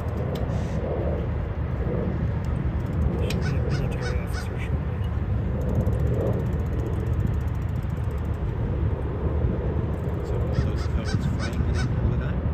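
Steady low rumble of outdoor background noise, with several short bird calls scattered through it.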